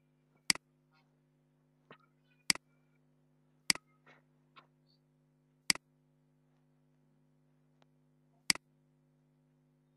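Computer mouse button clicking, five sharp clicks a second or more apart with a few fainter ticks between them, over a faint steady hum.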